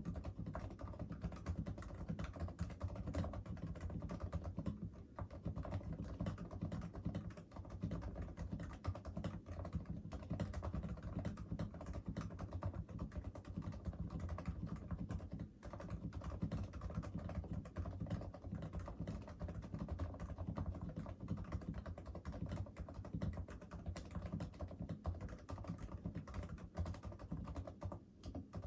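Continuous typing on a Realforce RGB TKL Topre keyboard with PBT keycaps, silencing rings and lubed sliders: a dense, steady stream of keystrokes with only a few brief pauses.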